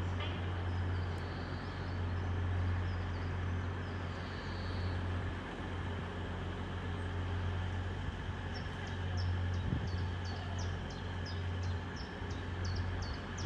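Steady low rumble of a train standing at the station, with background noise. In the second half a bird chirps repeatedly, about twice a second.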